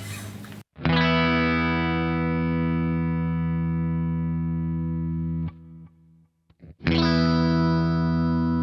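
Washburn Sonamaster S1 electric guitar with single-coil pickups, played through distortion: a chord struck and left to ring out to show its sustain, cut off after about five seconds, then struck again and left ringing.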